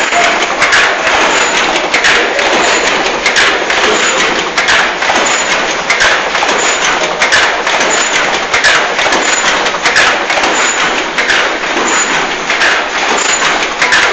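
SVM 53 intermittent packaging machine running: a dense mechanical clatter of clicks and knocks with a regular beat about every two-thirds of a second.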